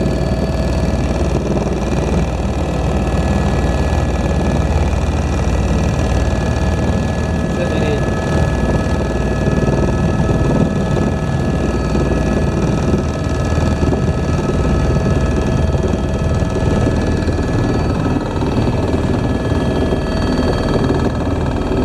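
Helicopter in flight, heard from inside the cabin: a steady, loud drone of engine and rotor with a steady whine over it.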